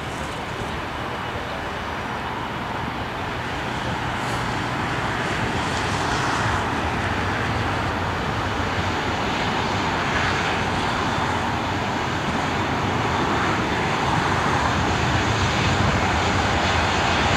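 Airbus A330-200 jet engines running at taxi power as the airliner rolls along the taxiway. A steady rushing noise that grows gradually louder.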